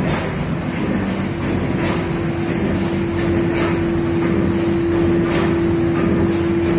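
Automatic paper-feed hot foil stamping machine running: a steady mechanical clatter with repeated sharp clacks from its stamping and feeding cycle. A steady hum joins about a second and a half in.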